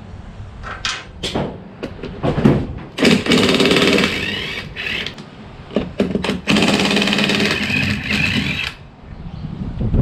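Impact wrench undoing the wheel nuts on the front wheel of an eight-wheel-drive Argo: a burst of fast hammering rattle about three seconds in and a longer one of about two seconds in the second half, with clanks of tools and nuts in between. The nuts come free easily, the anti-seize having worked.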